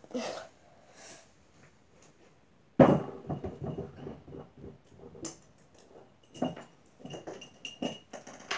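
A loud knock about three seconds in, as of a heavy object set down on a hard surface, followed by a run of small clinks and knocks from objects being handled and moved about.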